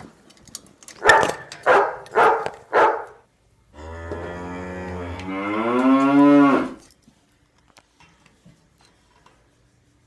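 Dubbed animal sound effects: four short dog barks, then one long cow moo lasting about three seconds.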